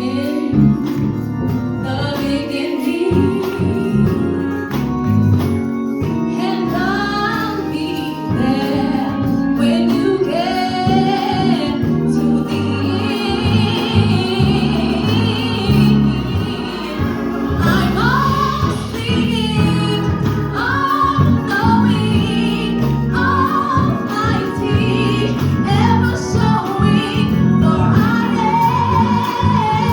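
Gospel song performed live: singing with held, wavering notes over steady instrumental accompaniment.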